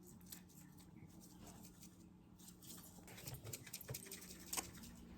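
Faint, scattered light ticks and taps, growing busier from about three seconds in, from handling the slime-making supplies as the glitter is got out. A steady low hum sits underneath.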